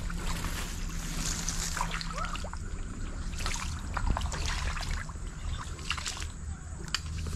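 Footsteps crunching and rustling over dry palm fronds and twigs on a muddy stream bank: scattered sharp crackles and snaps over a steady background of trickling water.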